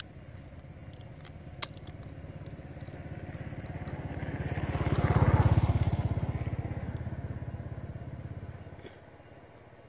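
Engine of a passing motor vehicle, growing louder to a peak about halfway through and then fading away. A couple of sharp clicks come before it.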